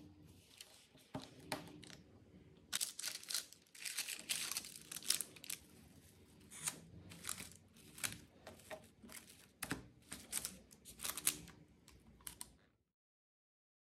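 Plastic cling film crinkling and crackling as it is pulled and stretched over a baking tray, in many sharp irregular crackles. It stops abruptly about a second before the end.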